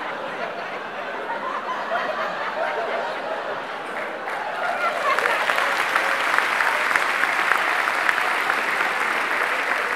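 Audience laughing, then breaking into applause about halfway through, which is louder than the laughter.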